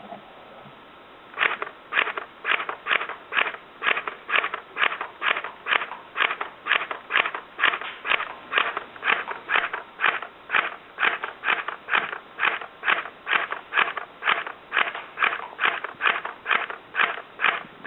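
CYMA CM023 MP5 airsoft electric gun firing single shots, a sharp mechanical crack about two and a half times a second, starting about a second and a half in.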